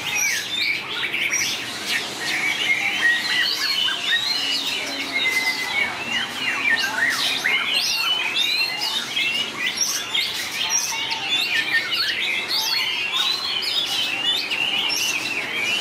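White-rumped shama singing without a break: fast, ever-changing phrases of rising and falling whistles and quick chattering notes.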